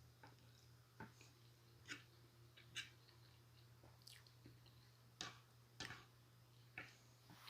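Faint chewing of shrimp lo mein noodles close to the microphone: soft wet mouth clicks, roughly one a second, over a steady low electrical hum.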